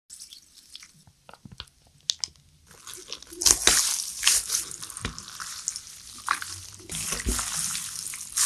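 Close-miked ASMR food sounds: chopsticks lifting and working buckwheat noodles through thick red chili sauce in a metal bowl, making sticky, wet noise with sharp clicks. Quiet with a few clicks at first, much louder and busier from about three seconds in.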